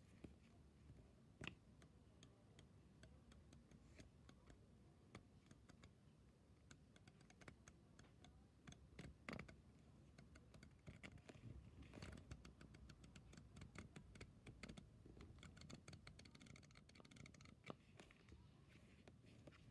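Pages of a thick card-stock flipbook riffling off the thumb, making faint, quick paper clicks. The clicks come in dense, rapid runs from about the middle on.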